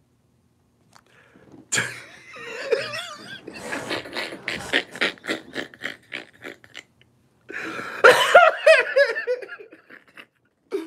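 A man laughing hard: a long run of quick, breathy pulses, then louder, higher, wavering laughter about eight seconds in.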